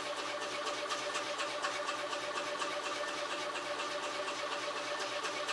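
Steady machine hum with two held tones and a fast, even ticking.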